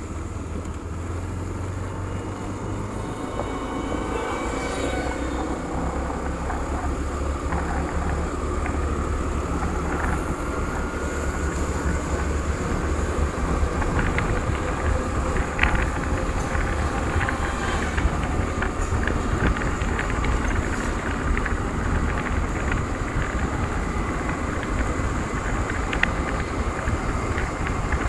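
Scooter engine running under way, its whine rising in pitch over the first ten seconds or so as it picks up speed, then holding steady. Heavy wind rumble on the microphone, with a few light clicks in the second half.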